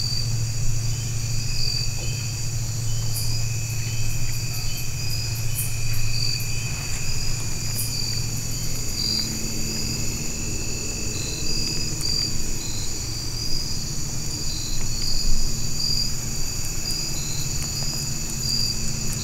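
A steady chorus of insects, several high-pitched trills layered together, one of them pulsing. Underneath runs a low steady drone, joined about halfway through by a faint steady hum.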